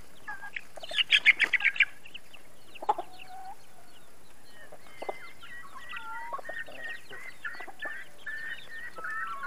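Young chickens peeping with many short high calls while they forage. About a second in, a chicken gives a quick run of loud clucks.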